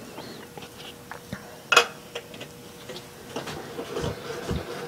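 Metal hand tools clinking and tapping against a steel machine table as they are picked up and set down, with one sharper ringing metallic clank a little under two seconds in. A faint steady hum runs underneath.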